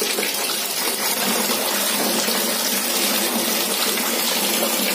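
Steady rush of water running and splashing into a plastic tub, as a wet Persian cat is rinsed.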